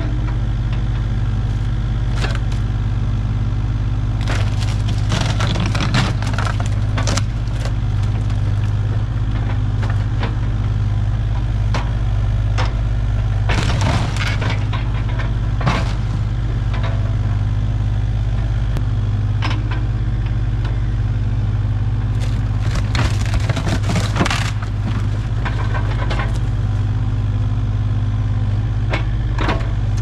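Kubota KX057-5 mini excavator's diesel engine running steadily. Over it come repeated sharp cracks, knocks and crashes, in several clusters, as the bucket breaks up and shoves wooden boards and sheeting.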